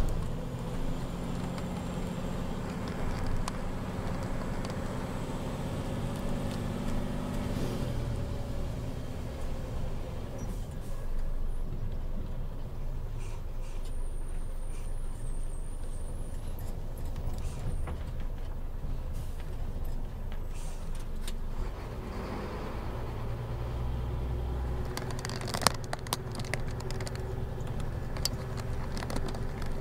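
Scania truck's diesel engine running, heard from inside the cab on a winding mountain road. Its steady note changes about eight seconds in and rises to a new steady pitch about 22 seconds in. A single sharp click comes near the end.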